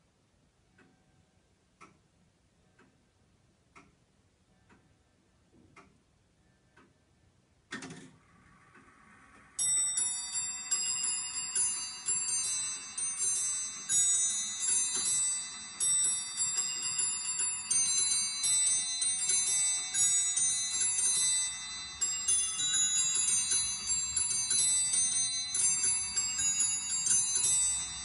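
Robert & Peter Higgs longcase clock (circa 1770) ticking softly about once a second, then a sudden clunk and brief whir from its mechanism about eight seconds in, after which its musical train plays a minuet on a set of bells.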